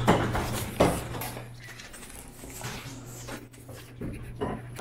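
Dishes and utensils clinking and knocking, with two sharp knocks in the first second and then quieter clatter.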